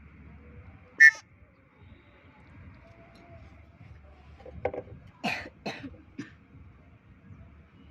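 Birds calling: one sharp, loud call about a second in, then a quick run of four short, harsh calls a few seconds later.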